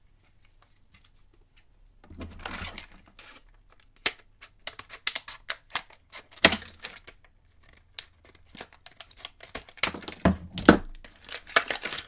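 Stiff clear plastic blister packaging of a padlock being torn and pulled open by hand: a run of crackles and sharp snaps, starting about two seconds in and busiest in the second half.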